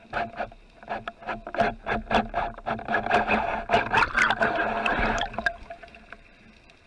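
Underwater clatter of sharp clicks and knocks from the speargun and its line being handled, with a hissing rush of bubbles. It grows busier through the middle and dies away about five and a half seconds in.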